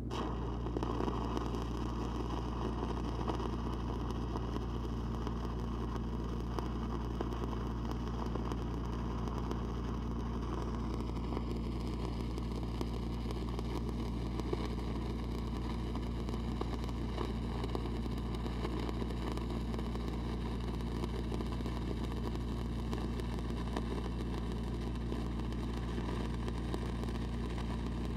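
Lincoln SAE 300 engine-driven welder running steadily under welding load, with the crackle and hiss of a 5/32 E8010 stick electrode burning in the arc on a downhill pass around steel pipe.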